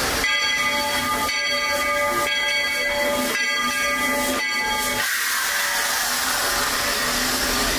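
Steam locomotive sounding five ringing tones about a second apart, then a steady hiss of steam.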